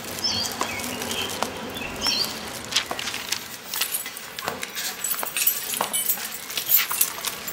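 Footsteps in rubber flip-flops on a concrete corridor floor, irregular taps that grow louder and closer in the second half, with newspaper rustling and small birds chirping a few times early on.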